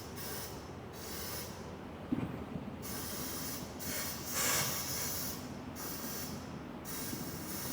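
Semi-automatic tire changer being worked, with compressed air hissing in about six short bursts, each about a second long.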